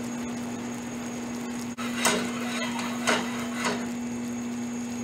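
Sugar syrup bubbling in a saucepan over a gas burner under a steady hum. Three knocks of utensils against the pan and stove, about two, three and three and a half seconds in, the first the loudest.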